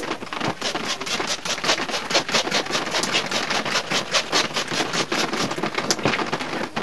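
Rapid short squirts from a hand trigger spray bottle (bird mister), several a second, spattering water onto a split air conditioner's indoor unit to rinse it.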